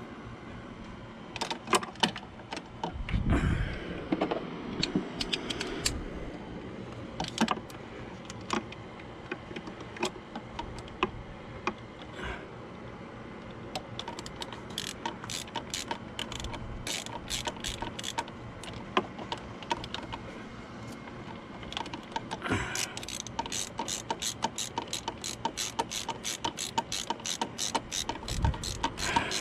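Hand ratchet wrench clicking as a thermostat housing bolt is turned. The clicks come in short scattered runs, with a louder clunk a few seconds in, and become a fast, even run of about five clicks a second near the end.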